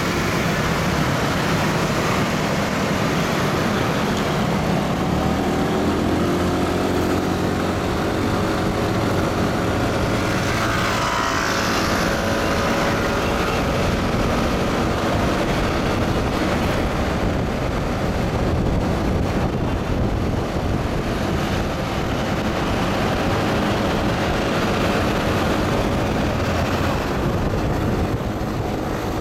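Riding a motorcycle through city traffic: its engine running under a steady rush of road and wind noise, with other cars and scooters passing close by.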